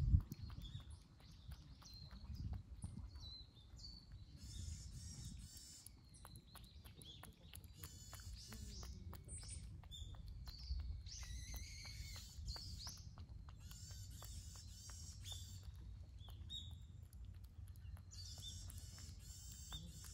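Small birds chirping in short bursts every few seconds over a low outdoor rumble, with many faint irregular clicks and a single thump right at the start.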